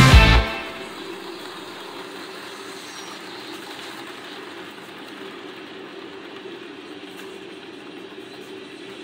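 Rock music cuts off just after the start, leaving a model train running past on its track: a steady, quiet hum of the locomotive motor and the cars' wheels rolling on the rails.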